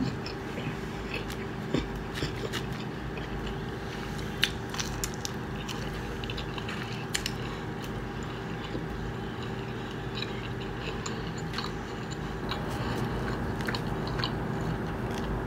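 Close-up chewing and biting of pizza: small wet mouth clicks and crunches scattered through, over a steady low hum.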